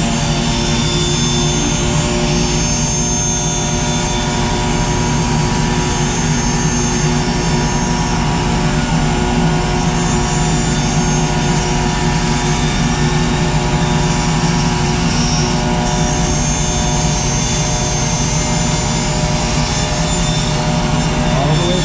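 Table saw running steadily, its blade cutting through a board.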